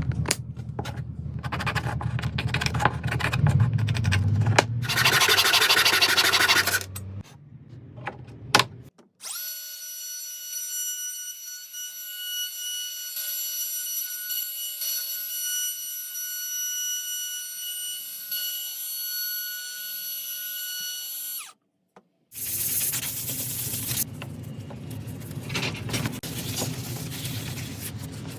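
Power tools running on wood: rough, heavy machining noise, then a steady high whine for about twelve seconds, then rough machining noise again after a brief break.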